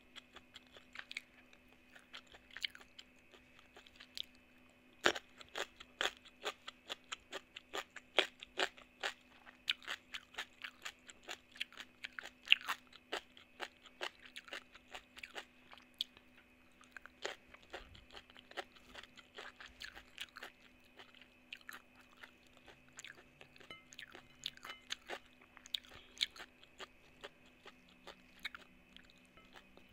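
A person chewing close to the microphone, with crisp, rapid crunches from bites of raw vegetables such as small round eggplant and cucumber, eaten with rice and spicy mango salad. The crunching comes thickest through the first half, then turns softer and sparser.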